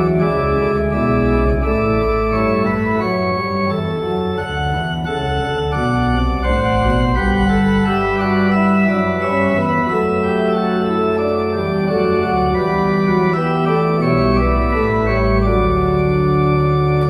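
Organ played with both hands and feet: sustained chords on the manuals over deep bass notes from the pedalboard. The final chord is released right at the end and dies away quickly.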